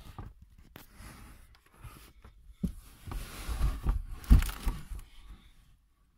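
Rustling and dull knocks of someone shifting about against the carpeted floor and trim inside a hatchback's boot, with the loudest thump about four seconds in; the noise stops shortly before the end.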